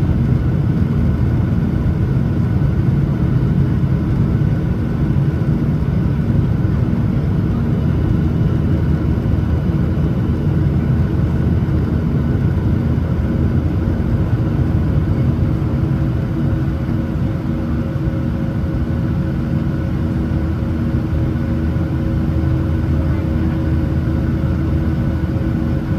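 Cabin noise inside a Boeing 737-900ER with its CFM56-7B engines running steadily under power: an even low rumble with a few held tones over it.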